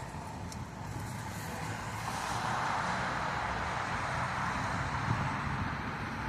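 Road traffic: engine rumble and tyre noise from passing vehicles, swelling about two seconds in as a vehicle goes by.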